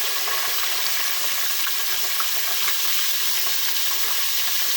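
Battered oysters deep-frying in hot oil: a steady sizzle with scattered small crackles and pops.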